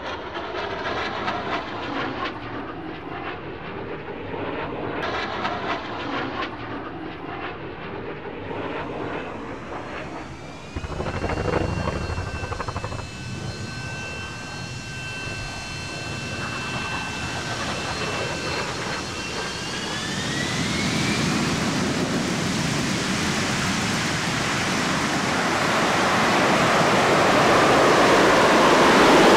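Jet aircraft passing: a rumble, then about eleven seconds in a sudden louder surge with a steady turbine whine that glides up in pitch near twenty seconds. The whine gives way to broad jet noise that grows steadily louder.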